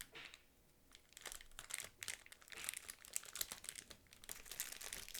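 Thin plastic packaging crinkling and rustling as a wrapped kit part is handled and opened, a rapid irregular crackle that thickens about a second in.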